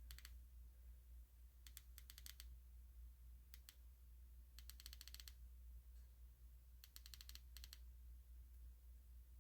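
Faint, rapid clicking of a flashlight's tactile button pressed in quick runs, in several bursts of about five clicks each. This is the five-click input on the front button that switches on the light's breathing locator mode. A low steady hum sits underneath.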